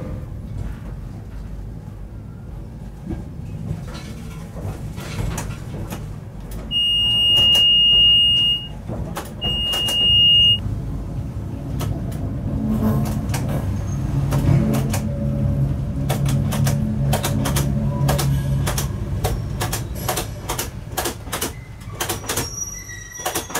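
Cab of a Eurosprinter class 120 electric locomotive rolling slowly into a depot: a low running hum from the locomotive, swelling in the middle, with a string of sharp clicks from the wheels crossing points and rail joints, more frequent in the second half. About seven seconds in, a high cab warning beep sounds twice, about two seconds and then one second long, louder than everything else.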